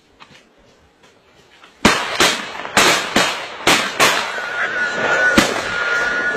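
A rapid volley of about seven gunshots, starting about two seconds in, fired by hunters at wild boars.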